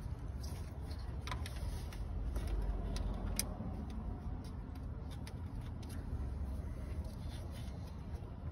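Scattered small clicks and knocks of hands and a tool working on parts in a car's engine bay, over a steady low rumble.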